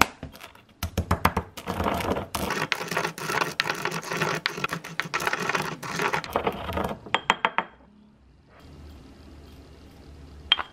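Wooden pestle grinding sesame seeds in a grooved ceramic mortar: a dense, scratchy, crunchy grating for about six seconds, followed by a few light clinks.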